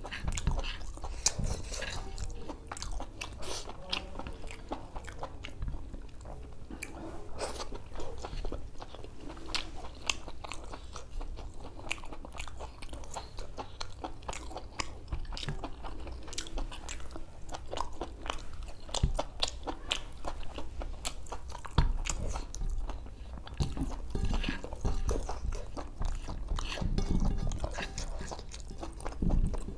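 Close-miked chewing and wet mouth smacking as a man eats spicy mutton boti (mutton large intestine) by hand. There are many irregular sharp wet clicks, with heavier chews near the end.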